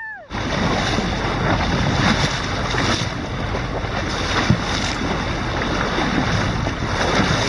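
Wind buffeting the microphone over a steady rush of sea water along the hull of a boat under way, with dolphins riding its bow wave.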